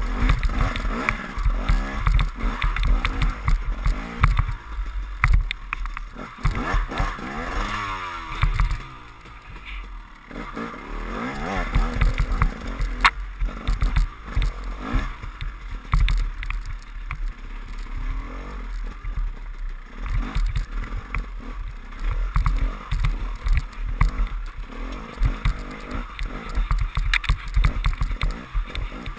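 KTM enduro motorcycle engine revving up and down as it is ridden hard over rough ground, the revs easing briefly about nine seconds in. Wind buffets the bike-mounted microphone, and knocks come from the bike jolting over bumps.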